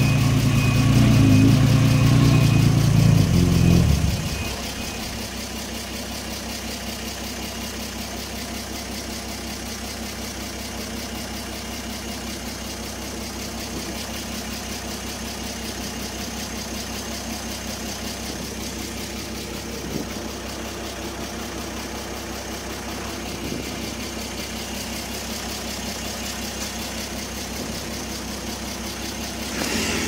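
Heavy construction machine's diesel engine running loud, then dropping to a steady idle about four seconds in, with a couple of faint knocks later on.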